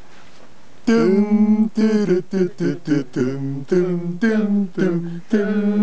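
Voices singing a short unaccompanied tune in held notes, starting about a second in.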